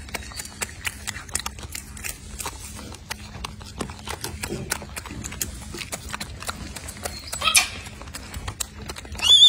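Golden snub-nosed monkey chewing food up close: irregular crunching clicks, several a second. A short, loud, high-pitched squeal cuts in at about seven and a half seconds and again at the very end.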